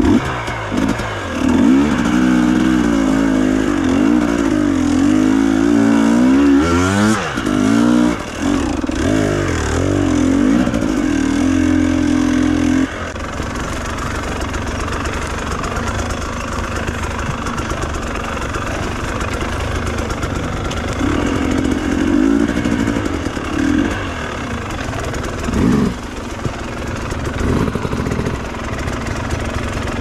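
Enduro dirt bike engine being ridden over rocks and roots, revving up and falling back again and again. About halfway through it settles into a steadier, lower run, with a few short throttle blips near the end.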